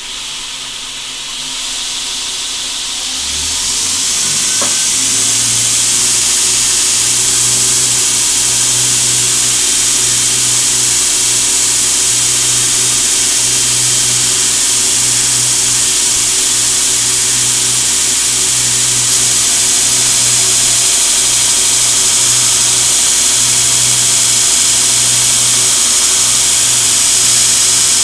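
Knife-making belt grinder spinning up over the first few seconds, then running steadily with a loud belt hiss over a low motor hum.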